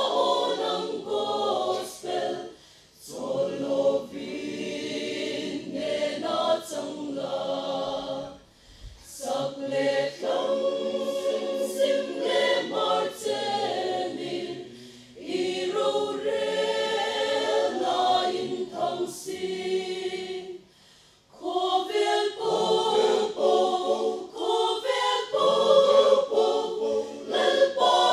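Mixed choir of men and women singing a gospel hymn in full harmony, phrase by phrase with brief breaks between phrases.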